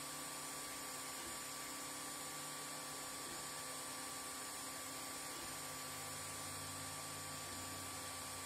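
Ender 3 Pro 3D printer running a print. The stepper motors hum in low tones that shift in pitch every second or so as the print head changes direction across the infill, over the steady whir of the hotend cooling fan.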